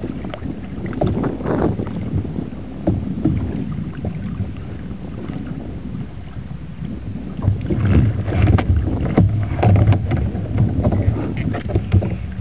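Wind rushing on the microphone and sea water lapping against a kayak's hull, as a low rough rumble that grows louder and gustier about two-thirds of the way through.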